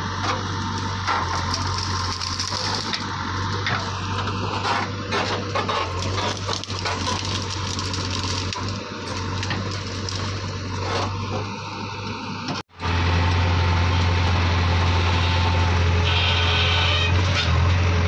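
JCB 3DX backhoe loader's diesel engine running steadily, with metallic rattles and knocks from the machine. About two-thirds of the way in the sound cuts out for an instant and returns louder and steadier.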